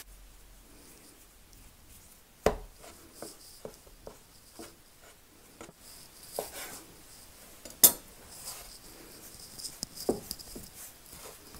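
Quiet handling of bread dough on a wooden cutting board: a knife cutting through the dough ring and knocking on the board, then hands rolling the dough into a rope. A few sharp knocks stand out, the loudest a little past halfway, with light taps and rubbing between.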